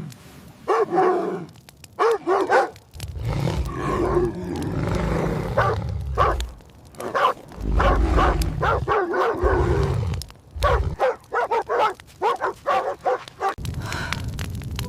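Dogs barking and yelping in quick runs of short calls, over a low rumble in parts.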